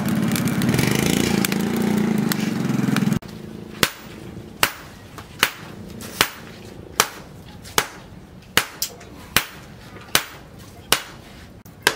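A steady mechanical drone for about the first three seconds, then, after a sudden cut, a hand hammer striking red-hot steel on a post anvil. The blows come at an even pace of a little more than one a second, about a dozen in all, each a sharp ringing strike.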